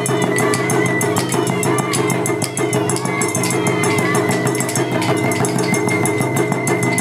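Japanese taiko drum ensemble playing with a transverse flute: rapid, steady drum strikes under a high flute melody that bends and holds notes.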